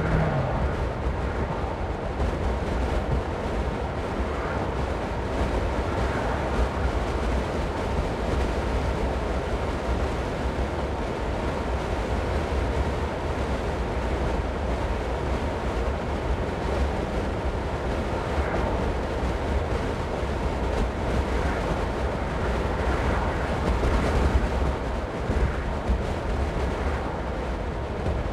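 Steady road and wind noise of a car on the move: a constant low rumble under an even hiss, with no changes in engine speed.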